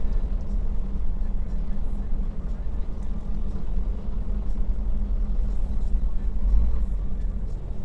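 Heavy truck's engine and road noise droning steadily inside the cab at highway cruising speed, the engine under load against a strong headwind.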